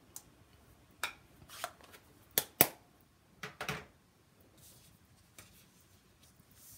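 Hands handling card-stamping supplies on a tabletop: a run of sharp clicks and taps from an ink pad case and paper, the loudest two in quick succession about two and a half seconds in, followed by faint paper rustling.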